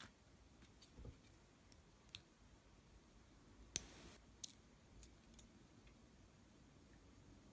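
Faint, scattered small metal clicks and taps as lock pins and springs are handled with tools at a bench, the sharpest click about four seconds in followed by a brief scrape.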